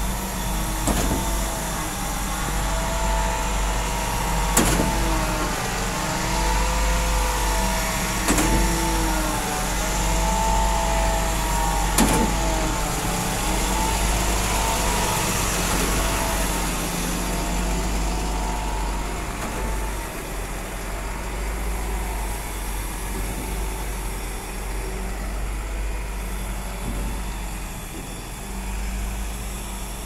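Junjin truck-mounted concrete pump running: a steady low diesel rumble with a whine that rises and falls over and over. In the first half a sharp clunk comes roughly every four seconds, and the whine fades out later.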